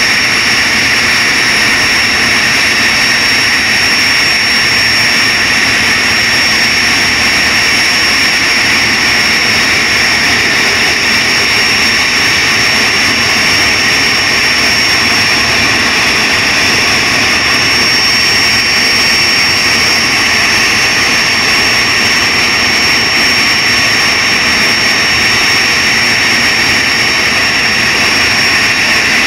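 Boeing 737-300's CFM56-3 jet engines running at a steady setting: a constant rushing noise with a thin, high whine held on one pitch, neither rising nor falling.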